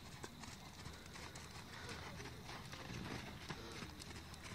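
Faint hoofbeats of a horse trotting on a soft dirt arena.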